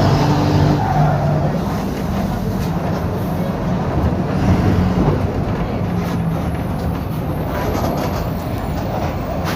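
Mercedes-Benz OF-1721 BlueTec 5 bus's four-cylinder diesel engine running with a steady low drone, its note coloured by a holed, leaking exhaust.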